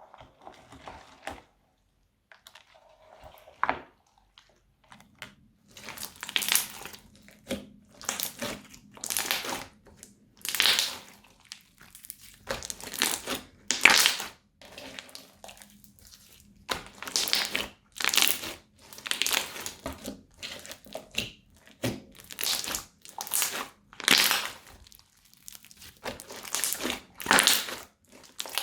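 Crunchy slime being squeezed and pressed by hand, giving repeated sharp crackling crunches about once a second, with a few quieter pops at first.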